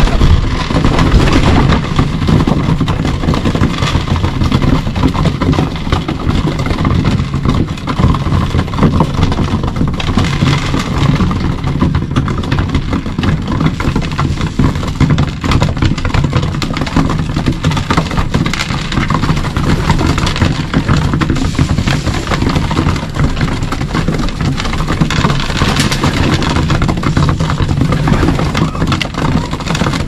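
Pigeons pecking feed off a wooden floor close by: a dense, continuous patter of quick taps, with a wing flap around the start, over a steady low rumble.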